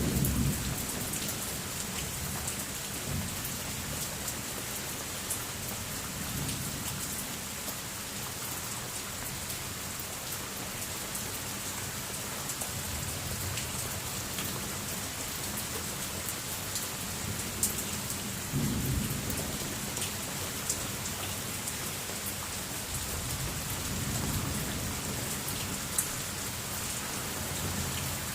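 Steady heavy rain falling, with fine drip ticks, and rolls of thunder rumbling several times, strongest just after the start and about two-thirds of the way through.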